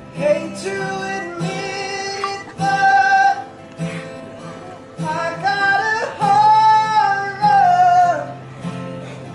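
A man singing a slow melody over a strummed acoustic guitar, with one long held note about six seconds in.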